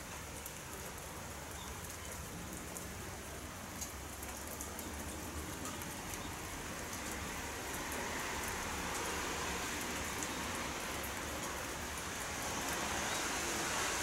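Rain falling steadily, a constant hiss scattered with fine raindrop ticks, growing louder in the second half.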